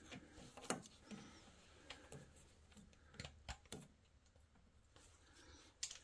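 Faint, scattered clicks and scrapes of a thread tap being turned by hand in a red-handled tap wrench, cutting threads into a drilled hole in a mini skid steer's sheet-metal panel, with a sharper click near the end.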